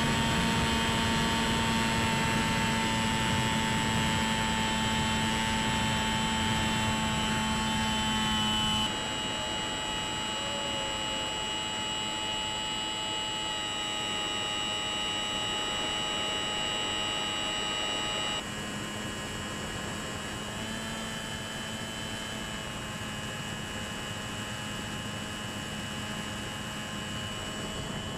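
Electric pusher motor and propeller of a Bixler 3 RC plane running steadily, a whine of several held tones over airflow noise. It steps down abruptly about nine seconds in and again around eighteen seconds, as the throttle is eased back.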